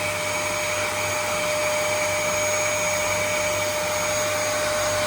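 Vacuum cleaner running steadily, a constant motor whine with a rushing of air.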